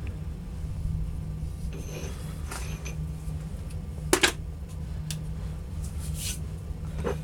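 Scattered clicks and knocks of metal parts and tools being handled at the workbench, the loudest a sharp double knock about four seconds in, over a steady low hum.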